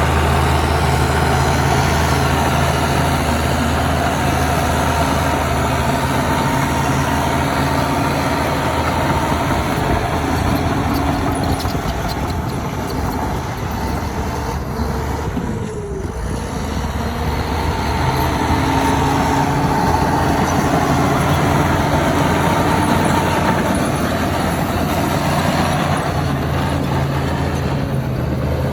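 Heavy diesel engine of earthmoving machinery running with a steady low drone. It eases off briefly about halfway through, then builds back up.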